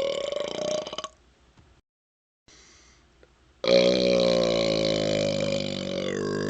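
A man burping after chugging Sprite. A long, low burp tails off about a second in, and after a pause of about two and a half seconds a second loud, long burp begins.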